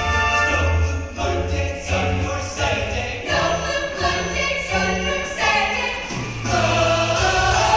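Mixed show choir of male and female voices singing in harmony over an accompaniment with a bass line and short chord hits; the bass settles on a long held low note and the sound swells about six and a half seconds in.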